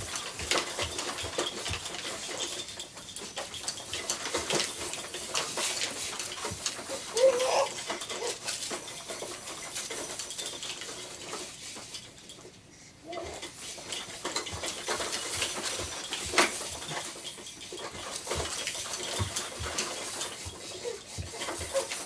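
Plastic toys and parts of a baby's bouncer play center rattling and clacking continually and irregularly as the toddler bounces and bangs on it, with a few brief high-pitched vocal sounds from the baby. The rattling eases off for a moment past the middle.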